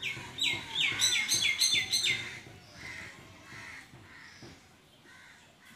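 A bird calling: a quick run of about seven sharp notes, each falling in pitch, over the first two seconds or so, then a few fainter calls.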